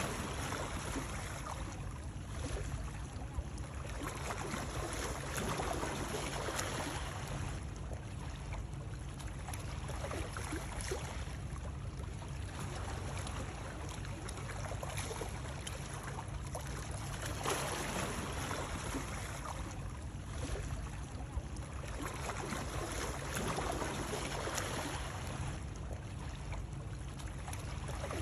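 Continuous water noise, splashing and lapping that swells and eases every few seconds over a steady low rumble, used as soothing white noise.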